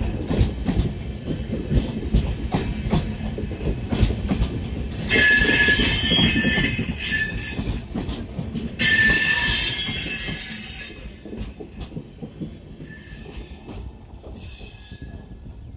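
Passenger coaches rolling past at close range, their wheels clattering steadily over the rail joints. About five seconds in come two spells of loud, high-pitched wheel squeal, each a few seconds long. The sound then drops away as the last coach goes by.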